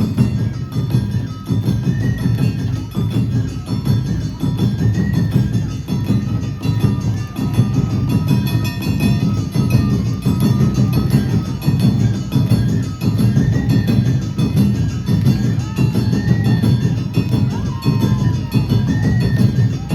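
Awa Odori hayashi (festival band) music played live: taiko drums and a clanging kane hand gong keep a driving two-beat rhythm, with repeated high flute notes over it.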